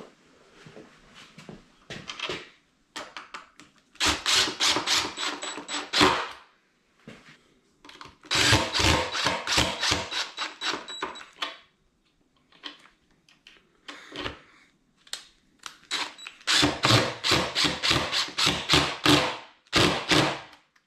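Tool work on a deer's antler and skull-cap piece: three spells of quick, rough, rhythmic strokes with short pauses between them.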